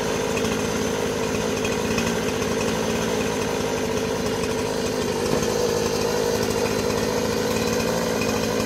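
Two-stroke chainsaw engine running steadily at a constant speed.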